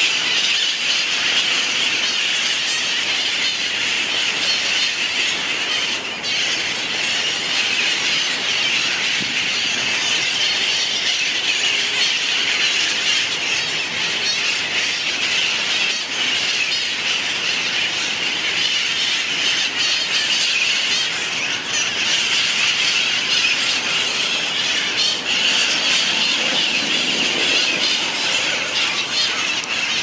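A flock of feral conures (San Francisco's wild parrots) screeching together in the trees: a dense, continuous chorus of harsh, overlapping squawks with no break.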